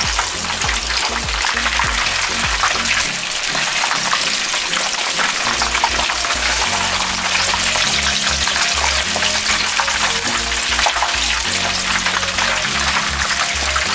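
Chicken pieces deep-frying in hot oil in a pan, with a steady, dense crackling sizzle, under background music.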